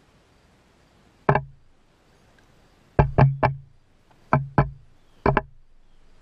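Hens' beaks pecking at the camera and its legs: seven sharp knocks with a short low ring after each, one alone, then a quick run of three, then two, then one more.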